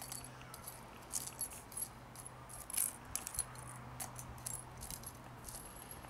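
Metal spoon scraping and clinking through crumbly burnt thermite slag and ash on a stone slab: a string of irregular light clicks and scrapes, the loudest about three seconds in.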